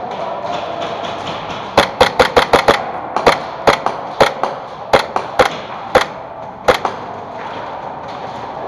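Airsoft gunfire: about fifteen sharp cracks, a quick run of about seven a little under two seconds in, then single shots spaced over the next five seconds.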